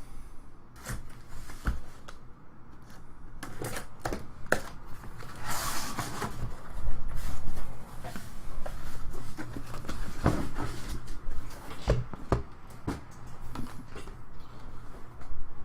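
A sealed cardboard case of trading-card hobby boxes being opened and the boxes handled: a string of taps, clicks and knocks of cardboard, with a louder rustling scrape about six seconds in.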